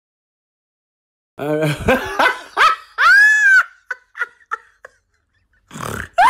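High-pitched whimpering, crying-like vocal sounds, starting about a second and a half in, with one long rising-and-falling wail followed by a few short yelps.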